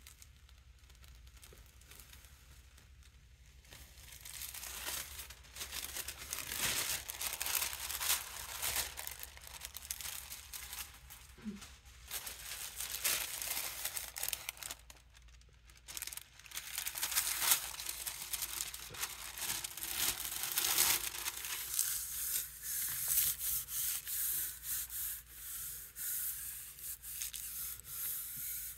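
Thin artist tissue paper crinkling as it is handled and laid over a gel printing plate, starting about four seconds in, then rubbed down by hand in repeated strokes near the end to take the print.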